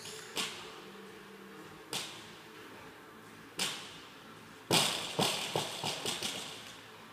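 Barbell loaded with bumper plates touching down on a rubber gym floor three times, about a second and a half apart, during deadlift reps. Near the end it is dropped: a loud impact followed by several smaller bounces and rattles that die away over about a second and a half.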